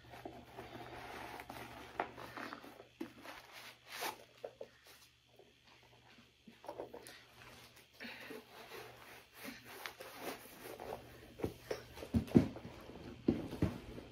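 Handling noises as Nike Dunk sneakers are pulled on: scattered rustling, soft clicks and scrapes, with a few heavier thumps near the end.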